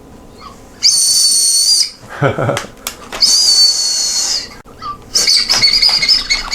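A candy whistle blown in two long, steady, shrill toots. A shorter, wavering toot follows near the end.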